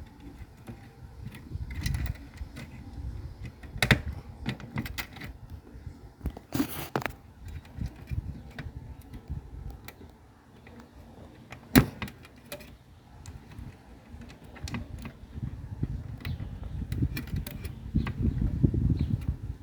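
Irregular clicks, taps and small rattles of hard parts being handled on a workbench, with a few sharper knocks and low bumping toward the end.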